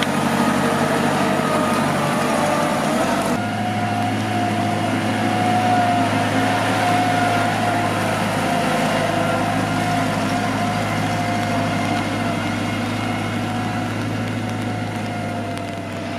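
Balkancar Record MPR-20 platform truck running as it drives on a gravel track: a steady low hum with a higher whine over it. The sound changes abruptly about three seconds in, then holds steady.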